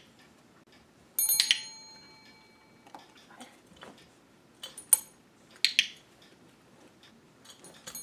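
A desktop call bell is struck once about a second in, ringing out for about a second. A few seconds later come several sharp clicks from a training clicker marking the behaviour.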